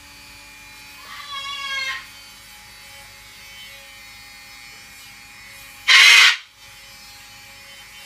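Handheld rotary nail grinder (Dremel) running with a steady whine while a sulphur-crested cockatoo's toenails are ground down. The cockatoo gives a short wavering call about a second in and a loud, harsh half-second screech about six seconds in.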